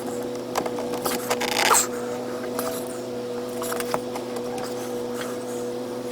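Scattered scrapes, clicks and knocks of hands and metal working at a stuck spin-on oil filter under a Jeep Patriot, with a longer scrape about a second and a half in. A steady engine drone from lawn-mowing equipment runs underneath.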